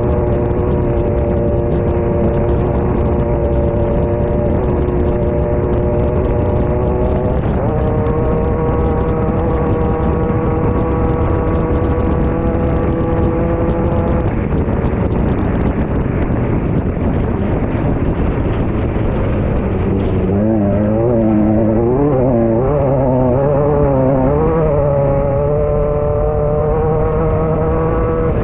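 Class 9 off-road race car's engine running hard, heard from inside the car over a constant rush of noise. Its pitch steps up about seven seconds in and shifts again at about fourteen, then swings rapidly up and down several times from about twenty seconds in.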